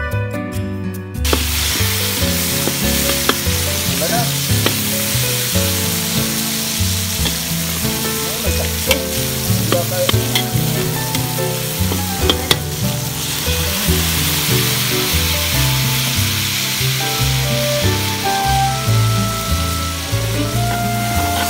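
Meat, onions and peppers sizzling in a hot wok as they are stir-fried, with a few sharp clinks of the spatula against the wok, over background music.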